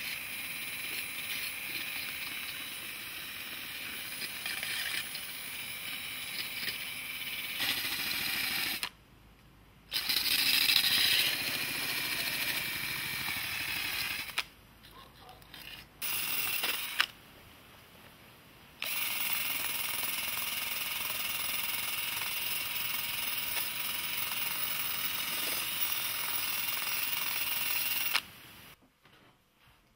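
Small handheld rotary tool running at high speed with a steady high whine as its small wheel cleans and polishes the brass tube of a carnyx. It stops and restarts several times, with gaps of a second or two, and stops near the end.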